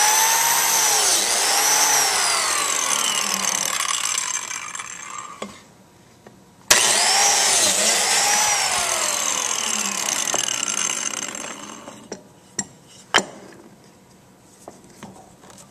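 Biscuit joiner started with the trigger and plunged into the end of a board to cut a biscuit slot, then let go so the blade winds down with a falling whine. This happens twice, about seven seconds apart, followed by a couple of sharp knocks.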